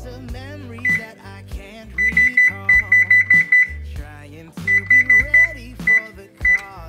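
Whirlpool oven's touchpad control panel beeping as its keys are pressed: a single short high beep for Bake, then quick runs of identical beeps, about six a second, as the temperature setting is stepped, and a couple of last single beeps near the end. Background music plays under it.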